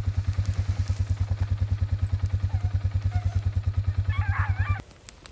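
Quad (ATV) engine idling with a fast, even low throb, then switched off almost five seconds in.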